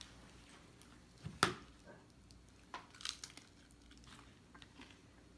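A chimichanga scraping through ice cream in a white ceramic bowl. There is one sharp knock against the bowl about a second and a half in, then a few faint crunches as it is bitten.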